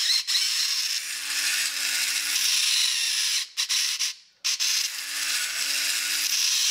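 The battery motor and gearbox of a 1961 Alps TV Spaceman tin robot run with a steady harsh rasp from its built-in screecher, a cardboard wiper rubbing against a gear. The sound cuts out a little past halfway and starts again about a second later, as the hand-held motor contact is broken and remade.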